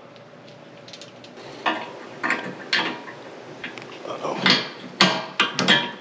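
Irregular metal knocks and clanks, about seven of them and louder in the second half, as a hydraulic ram is worked into place on a snow plow.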